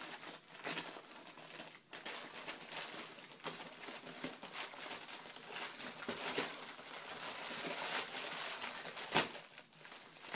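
Paper lantern lampshade crinkling and rustling as a cat shuffles about inside it, with a sharper crackle about nine seconds in.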